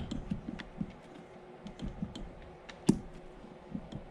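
Light, irregular clicks and taps of B16 transmission parts being handled by hand, with one louder knock about three seconds in.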